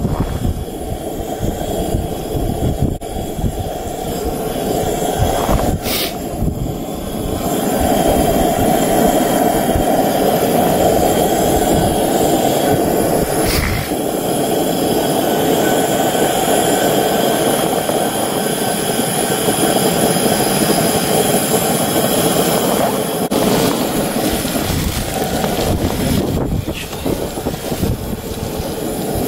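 Breaded trout fillet frying in butter in a cast-iron skillet on a camp stove: a steady sizzling rush that grows louder about seven seconds in, with a few sharp pops.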